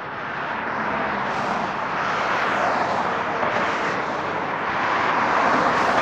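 Road traffic passing on the street: a steady rush of tyre and engine noise that swells, dips slightly about four seconds in, and peaks near the end as a black SUV drives past.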